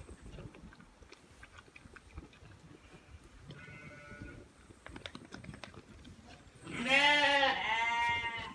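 Goat bleating loudly twice near the end, two long wavering calls back to back, after faint rustling and a fainter high-pitched call.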